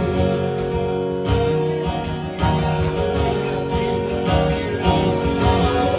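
A band playing an instrumental passage of a country song, led by strummed acoustic guitar, with no vocals.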